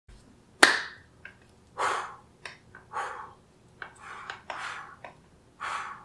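A single sharp clap-like snap about half a second in, followed by a series of short breathy hisses and a few faint clicks from a person.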